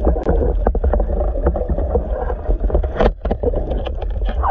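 Underwater recording: a steady low rumble of water against the camera, with many irregular short clicks and knocks.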